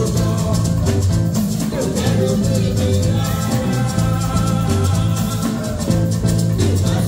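Live band music with a steady beat: singers over keyboard, brass and bass, played loud through a sound system.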